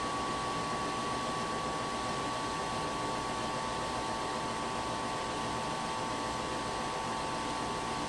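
Gas furnace running in heating mode with its panels off: a steady rush of air from the blower fan with a steady high hum over it.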